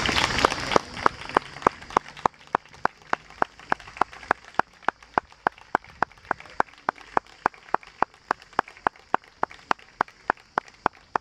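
Applause dying away within the first second, then a steady, evenly spaced ticking, about three and a half sharp pitched ticks a second, keeping an exact pulse.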